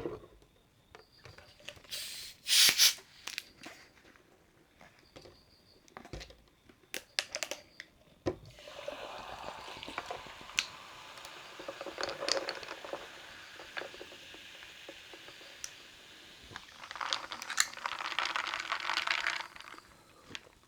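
A carbonated drink opened with a short, loud hiss of escaping gas, a few clicks, then sparkling water poured and fizzing with a fine crackle for several seconds, growing louder again near the end.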